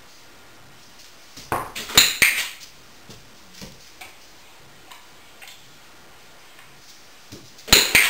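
Dog-training clicker clicking to mark the dog's touch on the target: a few sharp metallic clicks about a second and a half in, and another loud click near the end.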